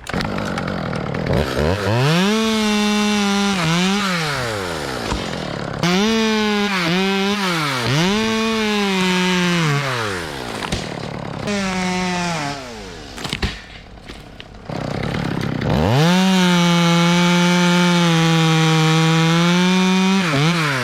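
Two-stroke chainsaw revved in several short bursts, the pitch climbing and dropping back each time, then held at high revs for the last five seconds.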